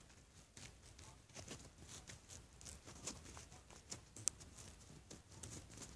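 A homemade foam donut squishy coated in acrylic paint being squeezed close to the microphone: faint crackling with scattered small clicks, one sharper click a little past four seconds in. The paint coat is hard and split on top.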